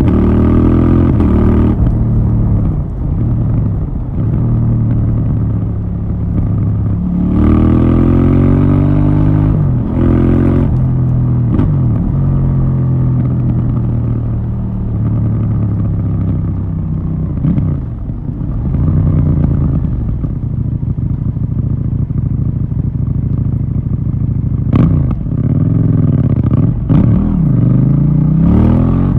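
KTM Duke 790's parallel-twin engine through its stock exhaust, its pitch rising and falling several times as it accelerates and backs off. There are two short sharp clicks near the end.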